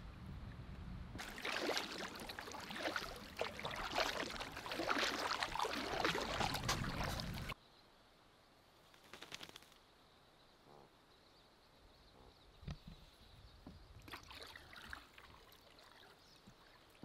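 Water splashing and rushing, loud and crackly for about six seconds, then cut off abruptly. After that it is quiet, with faint water and a few small knocks.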